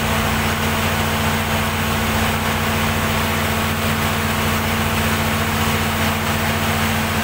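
Perkins diesel generator set running at a steady speed, a constant low drone with no change in pitch or level.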